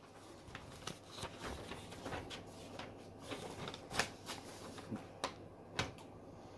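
Faint rustling and clicking as a package is handled, with a few sharper taps; the loudest comes about four seconds in.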